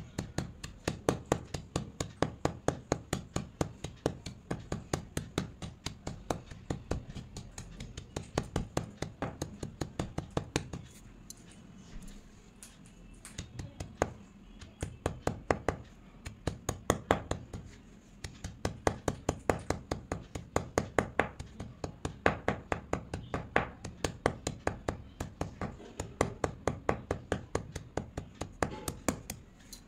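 A round stone pounding white slate pencil pieces on a stone slab: a fast, even run of crunchy knocks, about three or four a second, breaking briefly twice.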